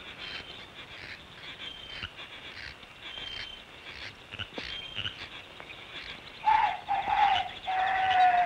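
Old cartoon soundtrack of a night chorus: short, high frog-like chirps and croaks, about two a second. About six and a half seconds in, a louder, held, pitched call starts as the scene turns to dawn.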